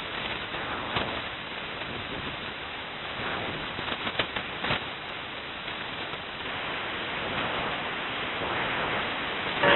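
Shortwave receiver static on the open 11175 kHz upper-sideband channel with no voice on it: a steady even hiss, with a few sharp crackles about a second in and again around four to five seconds in.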